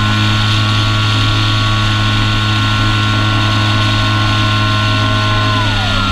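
Apprentice S 15e's brushless electric motor and propeller running steadily with a high whine and low hum over a hiss, picked up from on board the plane. Near the end the whine drops in pitch as the motor slows.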